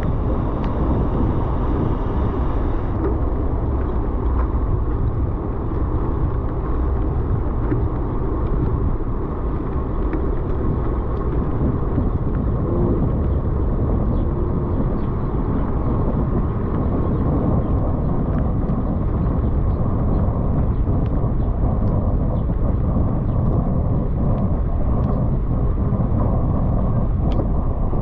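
Steady low rumble of wind buffeting the microphone and tyres rolling over wet paving while riding at about 8–10 mph, with a few faint ticks.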